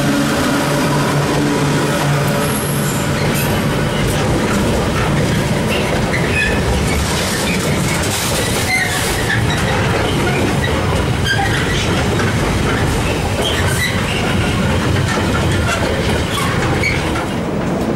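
Container freight train rolling past behind Class 86 electric locomotives. A steady motor hum from the locomotives fades in the first couple of seconds, then the wagon wheels rumble over the track with scattered short high squeals and clicks.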